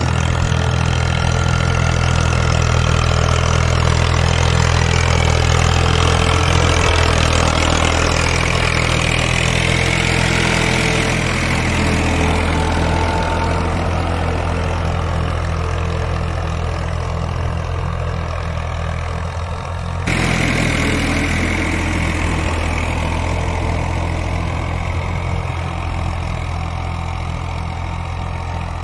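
Al-Ghazi tractor's diesel engine running steadily under load while pulling a five-furrow plough through the soil. About two-thirds of the way through there is an abrupt cut, and the drone picks up again with a slightly different tone.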